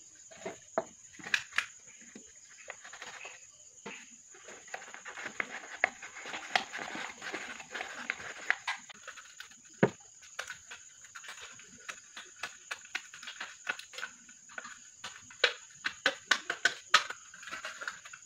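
Thin aluminium drink can being cut by hand: a blade scratching and scraping through the metal wall, then snips clipping it in a quick run of sharp clicks over the last few seconds.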